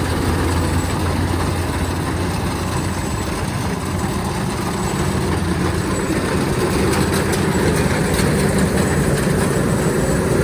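Kubota DC-93 combine harvester's diesel engine running steadily with a low hum.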